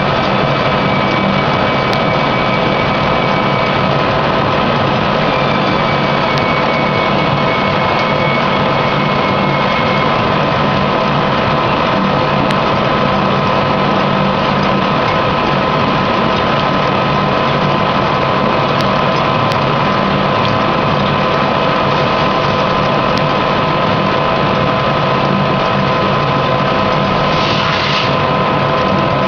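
Landis 2 1/2" Model A threading machine running steadily while a hollow mill cuts, a continuous machine noise with several steady whining tones. A brief higher hiss comes near the end.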